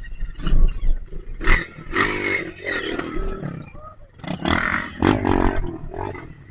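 Dirt bike engine revved hard in several bursts, the throttle being opened and closed as the bike is pushed through mud.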